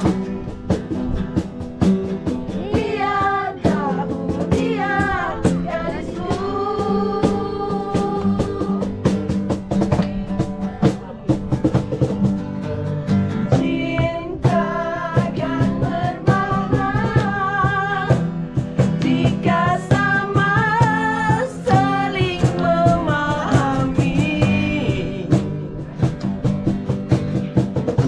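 Live acoustic busking: two guitars, one full-size and one smaller, strummed in steady rhythm while a group of voices sings a Malay pop song along with them, with hand claps.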